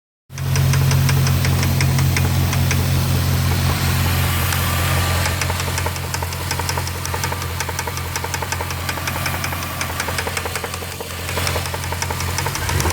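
Jeep Grand Cherokee 4.7-litre V8 idling with a steady, rapid, regular knock over the engine hum. The owner hears the knock coming from the cylinder closest to the firewall on the passenger side and has no idea of its cause.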